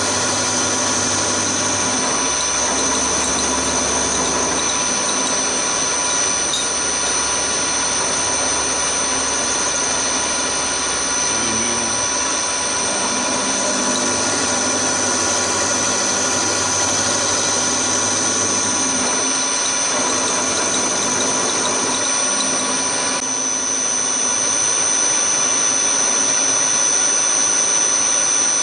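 Hafco HM 54GV milling machine running with an end mill cutting aluminium: a steady machine noise with a high, steady whine. The sound changes slightly about 23 seconds in.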